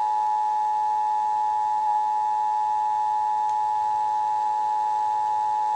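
Emergency Alert System attention signal played through a television: a steady two-tone electronic alarm held without a break. It is the tone that announces an emergency alert broadcast, here the nationwide test.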